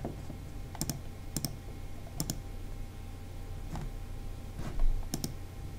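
Computer mouse clicks, several of them coming as quick pairs of press and release, spaced a second or so apart, over a steady low hum. A louder low bump comes about five seconds in.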